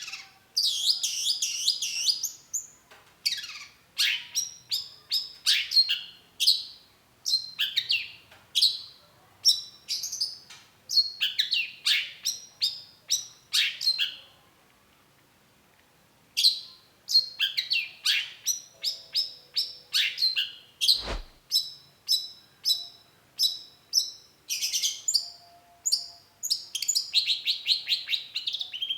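Long-tailed shrike singing: rapid runs of sharp, scratchy chattering notes in quick bursts, with a pause of about two seconds midway. A single sharp click comes about two-thirds of the way through.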